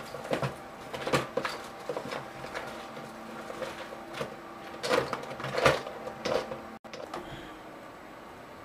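Clicks and knocks from a laptop's plastic case being handled, loudest in a cluster about five seconds in. They stop abruptly about seven seconds in, leaving a steady low hiss.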